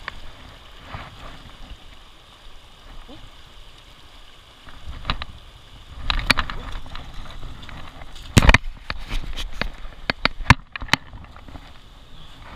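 A shallow river flowing fast over rocks, with a steady rush of water. From about five seconds in, a run of sharp knocks, clicks and rustles comes as someone moves and crouches on the grassy bank. The loudest knocks are at about eight and a half and eleven seconds.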